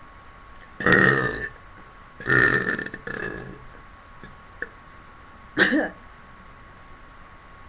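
A person belching on purpose, three times: a loud belch about a second in, a longer drawn-out one around two and a half seconds that trails off, and a short one near six seconds.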